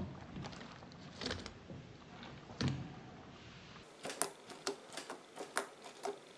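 A large mass of soft, stretchy slime being squished and worked by hand: a few soft squelches, then from about four seconds in a rapid run of sharp little clicks and pops.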